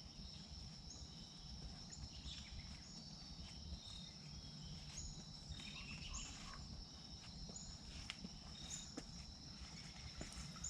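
Faint outdoor ambience: a steady high-pitched insect trill, with short bird chirps scattered through it and a low background rumble.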